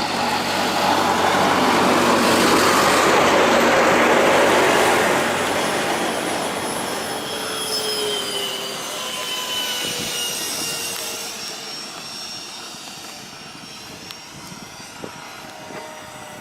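Electric ducted-fan RC jet flying past. Its rushing whine swells to a peak a few seconds in, then drops in pitch and fades as the model flies away.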